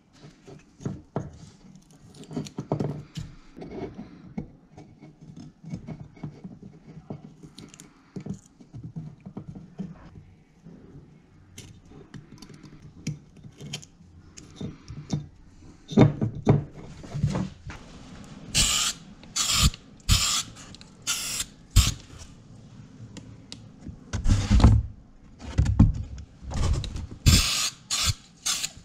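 Small clicks and rustles of aluminium foil tape being cut and pressed onto a muffler. In the second half a spray paint can of high-heat paint hisses in a series of short bursts, about a dozen, with a few dull knocks of handling between them.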